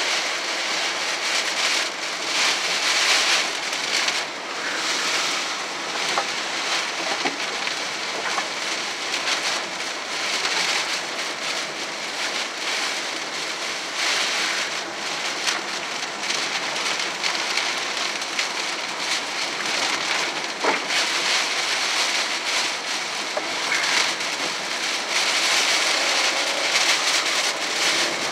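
Heavy rain hitting a car's windshield and roof, heard from inside the moving car: a dense, steady hiss that swells and eases.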